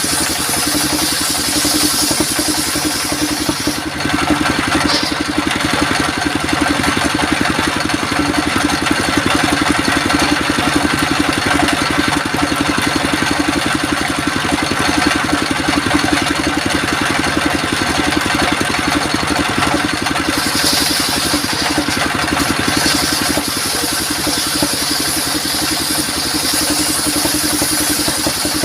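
Circular sawmill machinery running steadily with an engine-like hum. A high hiss over it drops away about four seconds in and comes back about twenty seconds in.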